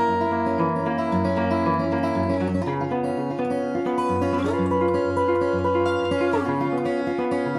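Solo steel-string acoustic guitar with a capo, played fingerstyle: a melody over steady bass notes, with two sliding notes about four and a half and six seconds in.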